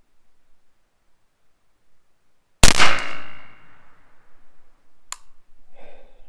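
A single .22 LR shot from a Ruger 10/22 semi-automatic rifle about two and a half seconds in, ringing out for about a second. A short sharp click follows a couple of seconds later.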